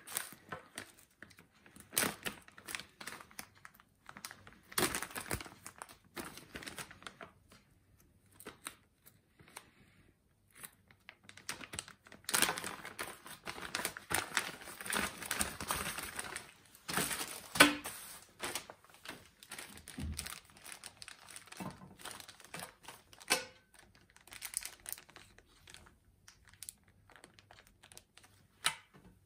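Clear plastic bags crinkling as they are handled and opened to take out multimeter test leads and probes. The crinkling comes in irregular bursts with short pauses and is loudest a little past halfway through.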